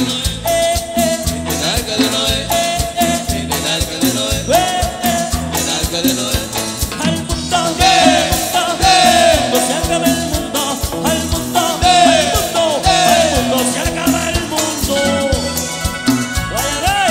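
Live Latin dance band playing an instrumental passage between sung verses: a steady bass-and-drum beat under a lead melody whose notes slide and bend.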